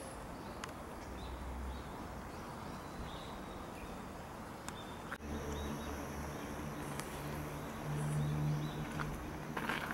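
Outdoor garden ambience: a steady background hiss with a few faint short chirps. About halfway through, the sound changes abruptly, and a steady low hum and a thin, high, steady tone come in.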